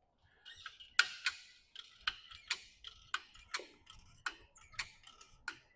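Hoist ratchet clicking in an even rhythm, about two sharp clicks a second, as the load is let down.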